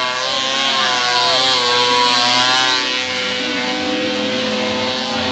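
Snowmobile engine running at high revs as the sled skims across open water, its pitch wavering briefly and then holding steady, over the hiss of spray thrown up by the track.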